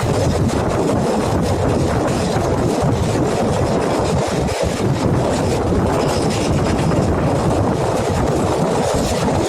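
Passenger train running at speed: a steady, loud rumble and rattle of wheels on rails, with a dense run of clicks and clatter.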